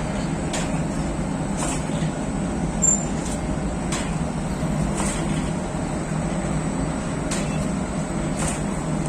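Steady hum of bakery machinery running, with faint ticks recurring about once a second and a single louder click about three seconds in.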